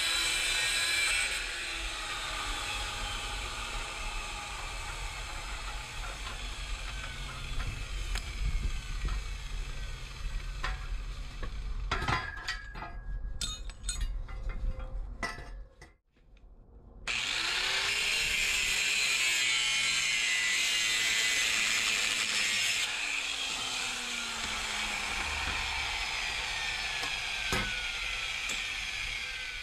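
Angle grinder cutting through a rusty steel exhaust pipe, the disc running in long stretches. Between the cuts, metal pieces clank and knock as they are handled, with a brief break in the sound about halfway through.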